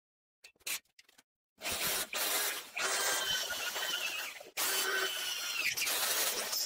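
Corded electric drill boring into a steel strip: a few handling clicks, then the drill runs under load from about a second and a half in, with a brief break just after the middle before it bites again.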